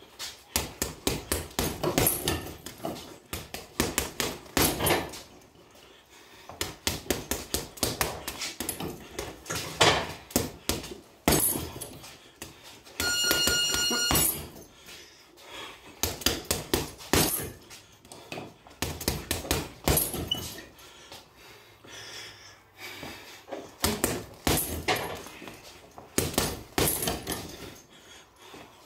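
Gloved hooks landing on a chain-hung teardrop punching bag: quick flurries of thuds with short pauses between them. About halfway through, a steady high beep sounds for about a second.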